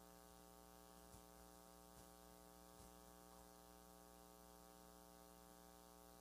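Near silence: a steady low electrical hum, with a few very faint soft clicks in the first few seconds.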